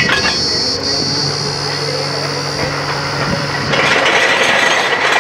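Truck-mounted borewell drilling rig running steadily with a constant high hiss while its drill pipe is hoisted out of the hole. A louder rush of noise comes in near four seconds in and lasts about a second and a half.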